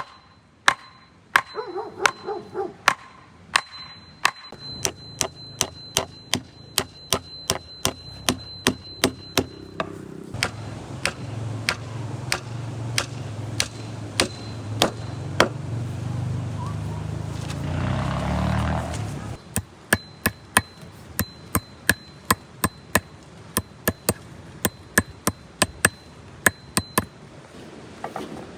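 A hammer striking in a steady rhythm of about two blows a second, some blows ringing like metal, as nails are driven in fence repair work. A low rumbling noise builds underneath and cuts off suddenly about two-thirds of the way through.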